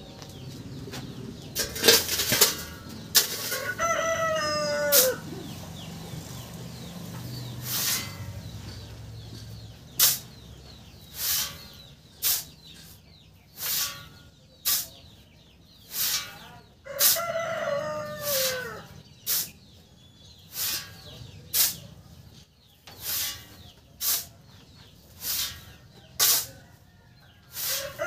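Steel shovel digging into a sand pile, a short stroke roughly once a second as sand is scooped out shovelful by shovelful for a cement mix. A rooster crows twice, a few seconds in and again past the middle.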